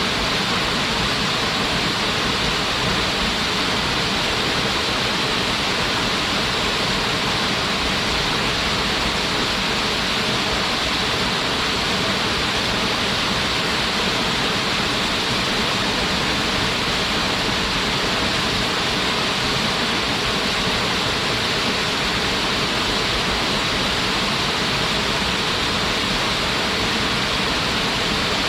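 Waterfall pouring steadily: a constant rush of falling water with its brightest hiss in the upper-middle range.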